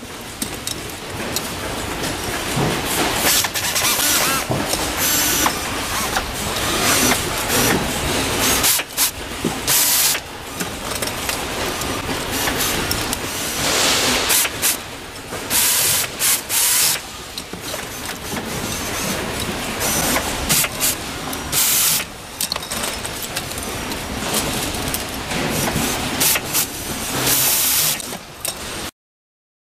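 Factory hinge assembly: a pneumatic screwdriver driving screws into steel concealed cabinet hinges, giving short hissing bursts of exhaust air every few seconds over steady workshop noise.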